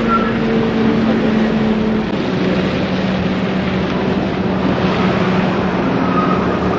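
Hyundai hatchback driving on a wet road, heard from inside: a steady low engine hum over an even rush of tyre and road noise.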